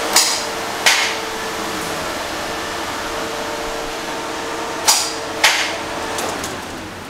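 Toyota Land Cruiser 105-series starter motor whirring with a steady whine, with four sharp clunks: two near the start and two around five seconds in. The starter is playing up.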